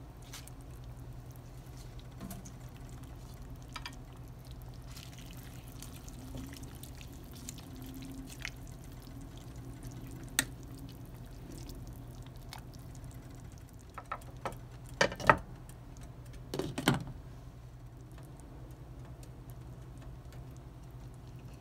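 Spinach being stirred into a pot of hot soup broth with a metal spoon: soft wet sloshing of leaves and liquid, with a few sharp clinks of the spoon against the steel pot, loudest in a cluster about two-thirds of the way in, over a steady low hum.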